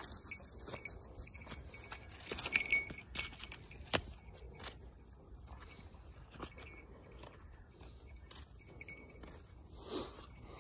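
Light metallic jingling and scattered crunches of footsteps on a dry, leaf-strewn dirt trail as a walker and a puppy move along it. The jingling is loudest about two to three seconds in, and there is one sharp click a little later.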